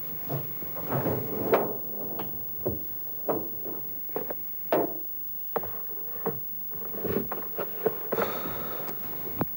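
Drawers and cabinet doors being opened and shut during a search, giving a string of irregular knocks, clicks and short scrapes, with a longer slide about eight seconds in.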